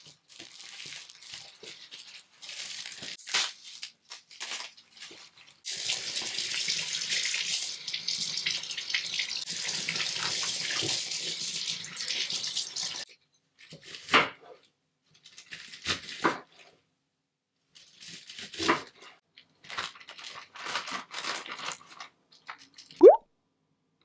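Kitchen tap running onto napa cabbage leaves in a stainless steel sink for about seven seconds as the leaves are rinsed. Before it come crackling rustles as the cabbage is unwrapped and its leaves are pulled off. After the water stops come a few short rustles and knocks, with a brief squeak near the end.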